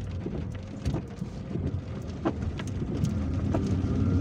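Inside a car driving slowly in rain: a steady low rumble of the car on the road, with scattered, irregular ticks of raindrops hitting the roof and windscreen.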